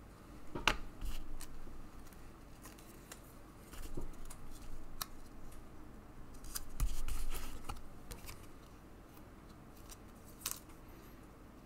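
Scattered light clicks, taps and rustles of trading cards and rigid plastic top loaders being handled at close range, irregular and quiet.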